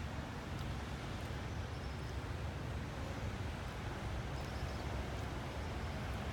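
Steady outdoor background noise: a fluttering low rumble under an even hiss, with a few faint short high chirps now and then.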